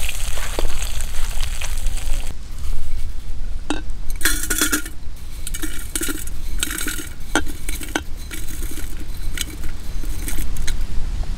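A hot pan hissing briefly, then glass clinking and small dry pieces rattling as they are tipped from a glass container into a glass teapot, in short bursts with sharp clicks.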